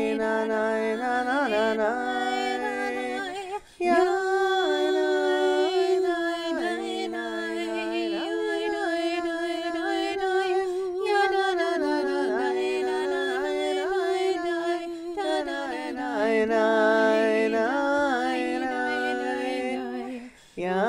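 Two women's voices singing an unaccompanied chant in harmony: one holds a long steady low note while the other moves above it. The singing breaks off briefly about four seconds in and again near the end.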